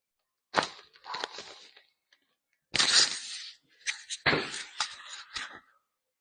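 Joints cracking during a chiropractic spinal adjustment: several sharp pops spread over a few seconds, with short bursts of rustling noise between them.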